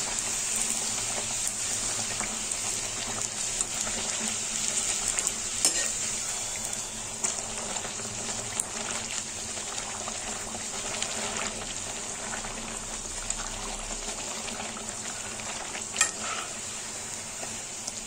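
Bhatura deep-frying in hot oil in a steel kadhai: steady sizzling and crackling as the dough is pressed down with a slotted metal spoon, with a couple of sharp metal clicks from the spoon against the pan.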